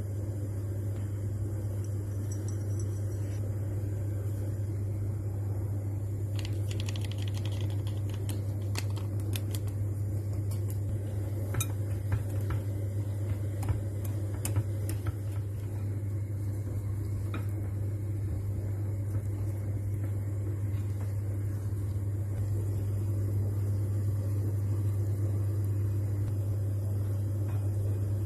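Light clicks and taps from a utensil against a mixing bowl as a batter is stirred, scattered from about 6 to 15 seconds in, over a steady low hum that is the loudest sound throughout.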